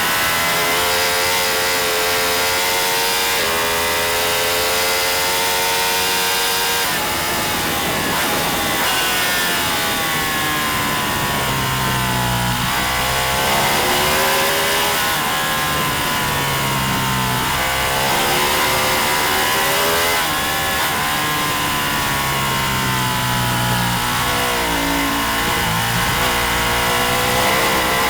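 Racing motorcycle engine under hard throttle, its pitch climbing through the revs and then dropping sharply several times as the bike shifts and brakes, over a steady rush of wind.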